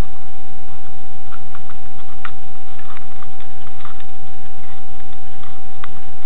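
Desktop computer power supply running with its newly fitted LED cooling fan, very quiet: a steady low hum and a steady high tone, with scattered light clicks and taps as the unit is handled.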